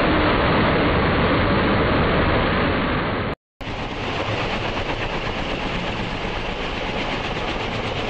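F-35B Lightning II hovering, its jet engine and lift fan giving a loud, steady jet noise. After an abrupt cut about three seconds in, a hovering MV-22 Osprey tiltrotor takes over: a quieter, even run of engine noise with the fast, steady beat of its rotors.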